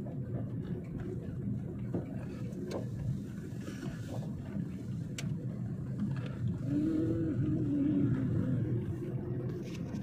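Car engine and road noise heard from inside the cabin while driving: a steady low rumble with a few faint clicks, growing a little louder past the middle.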